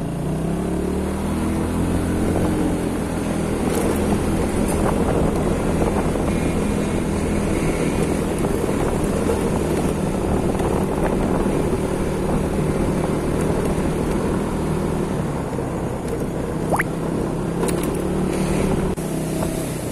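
Motorcycle engine running as the bike rides along, rising in pitch as it picks up speed about two seconds in, then holding a steady note, with wind buffeting the microphone.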